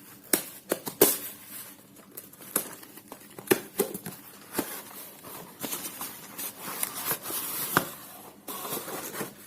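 A delivery parcel's packaging being torn open and handled: irregular crinkling and rustling with many sharp clicks.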